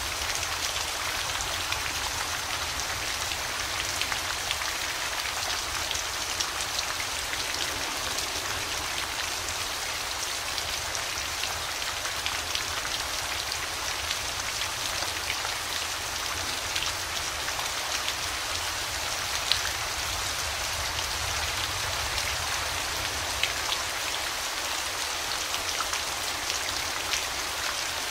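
Steady falling rain: an even hiss with many individual drops ticking on a surface, one sharper drop hit about two-thirds of the way through.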